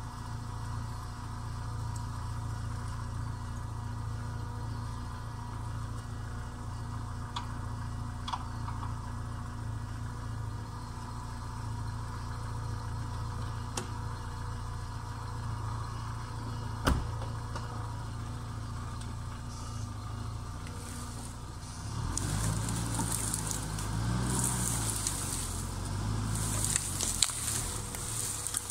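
Opel Frontera 2.0i's four-cylinder petrol engine idling with a steady hum. A single sharp knock, like a car door shutting, comes about halfway. In the last quarter the engine note rises and falls as the vehicle pulls away on loose ground.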